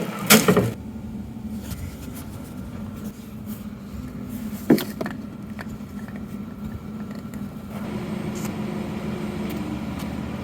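A truck engine running steadily, with two sharp knocks, one just after the start and one near the middle; the engine gets louder about eight seconds in.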